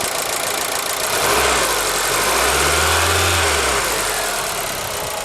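ZAZ Forza petrol engine idling with a ticking under the hood, briefly revved about a second in: the pitch rises and falls back to idle over about three seconds. The tick persists once the engine is warm, and the owner suspects the hydraulic lifters or the fuel injectors.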